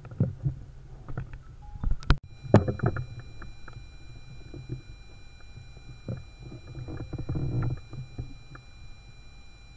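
Handling noise from a rifle-mounted scope camera as the rifle is swung about: irregular bumps, knocks and rubbing over a low rumble. From about two seconds in there is also a faint steady high whine.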